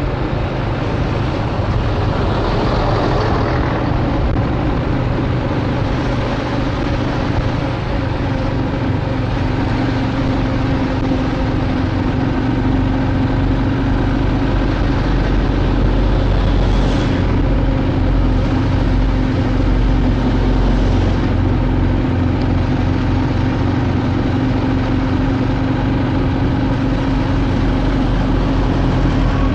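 Steady engine and road noise of a vehicle driving slowly, with a low, even hum that becomes clearer after the first several seconds.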